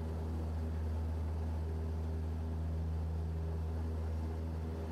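Cessna 172S's 180 hp four-cylinder engine and propeller running steadily at high power, a deep even drone, during the takeoff roll of a touch-and-go.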